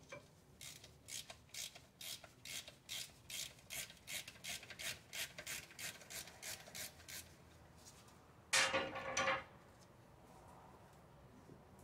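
Ratchet wrench working the oil pan drain plug loose: quick rasping ratchet strokes, about four a second, for some seven seconds. A louder short scrape follows about a second later.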